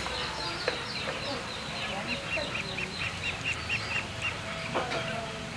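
Birds chirping in the background, with a quick run of about ten high chirps a couple of seconds in. Two soft knocks, one early and one near the end.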